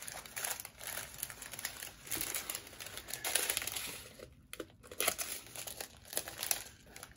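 Small clear plastic bags of diamond-painting drills crinkling and rustling as they are sorted through by hand. The rustling is irregular, with a brief lull about four seconds in.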